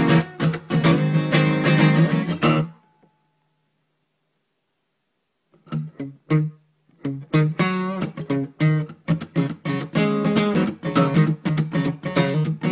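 Acoustic guitar (violão) being strummed in chords. The playing stops just under three seconds in, and a few seconds of silence follow. Then come two single strums, and steady strumming resumes.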